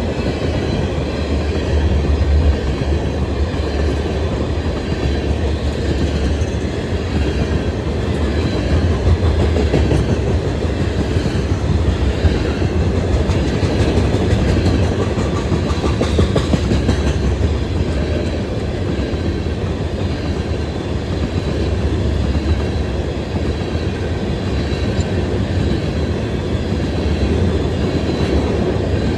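Freight cars of a mixed manifest train rolling past, a steady low rumble with wheels clicking over the rail joints.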